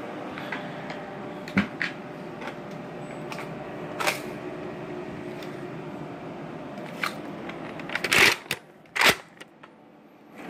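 Handling noise: scattered clicks and knocks, with two louder clatters near the end, over a steady room hum that drops away in the last second.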